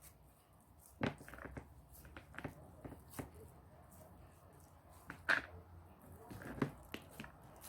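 Scattered light knocks and clicks, irregularly spaced, from hands working beef mince onto kebab skewers; the sharpest knock comes about five seconds in.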